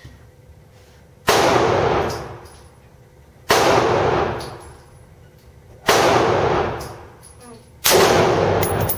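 Four gunshots about two seconds apart, each cracking suddenly and then trailing off in a long echo.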